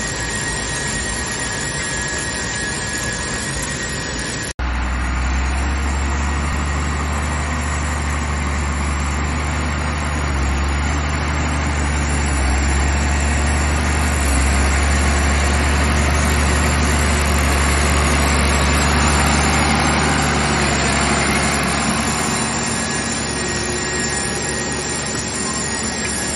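Caterpillar Challenger rubber-tracked tractor pulling a seed drill at work: a steady engine drone under a constant hiss of the machinery moving through the field. About four and a half seconds in the sound cuts abruptly, and a deep engine hum is then louder for most of the rest.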